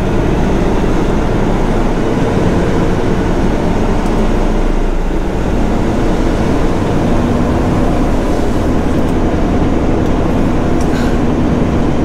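Semi-truck's diesel engine and drivetrain running as the tractor-trailer pulls away at low speed, heard inside the cab: a steady drone whose engine note changes pitch about halfway through.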